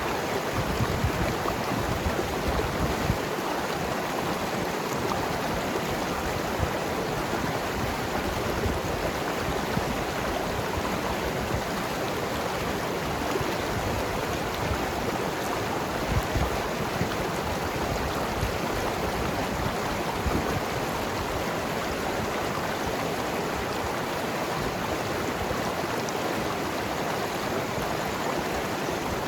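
Mountain river flowing and gurgling over rocks, a steady rushing of water with small splashes flickering through it.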